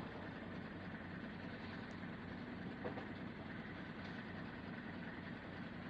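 Faint, steady background noise with a low hum, and one soft knock about three seconds in.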